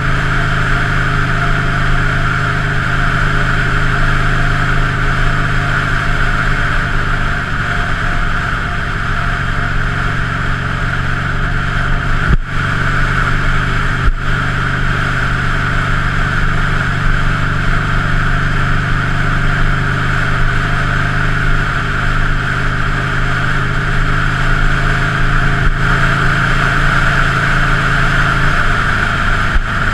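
2003 Buell Lightning XB9's air-cooled V-twin engine running steadily.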